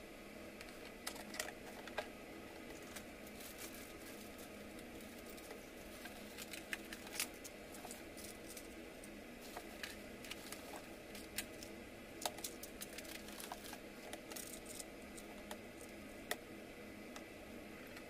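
Light, irregular clicks and taps of a small perfboard, component leads and tweezers being handled and set down on a workbench, a dozen or so scattered ticks over a steady faint hiss.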